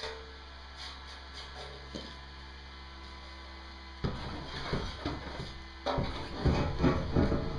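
Steady low electrical hum. About four seconds in, and louder about six seconds in, it is joined by rough, irregular workshop noise.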